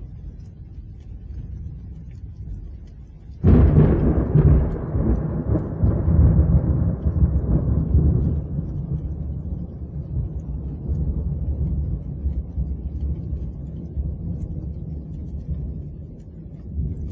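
Thunder sound effect: a low rumble, then a sudden sharp crack about three and a half seconds in, followed by a long rolling rumble that slowly dies away.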